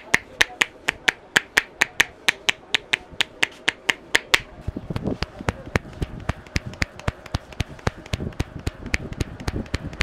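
Masseur's hands tapping rhythmically on the head during an Indian head massage: sharp claps about four or five a second, turning a little before halfway to quicker, softer pats with duller thuds.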